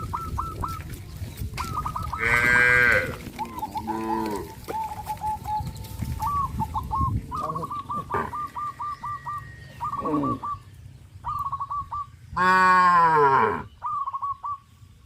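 Cattle mooing several times, long calls that fall in pitch, the loudest about twelve seconds in. A bird calls alongside in quick runs of short repeated notes.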